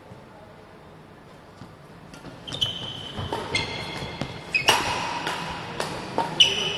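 Badminton rally on an indoor court: sharp racket hits on the shuttlecock and short, high squeaks of shoes on the court mat. They start about two seconds in and grow busier and louder.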